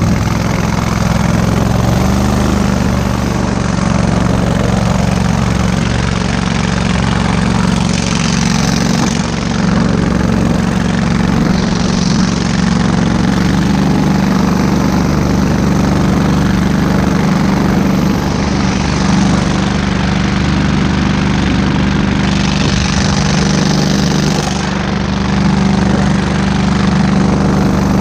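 23 hp Kohler engine on a Go-Devil long-tail mud motor running steadily at speed, pushing a boat under way. Its pitch steps up slightly about two seconds in and dips briefly near the end.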